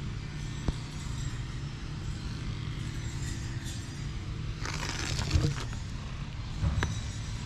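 A steady low background rumble, with a brief rustle about five seconds in as a hand strokes a tabby cat's fur close to the microphone, and a couple of faint clicks.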